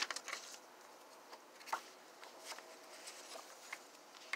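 Paper rustling as the pages of a disc-bound journal and a loose sheet are handled and turned, in a few short, scattered rustles and taps.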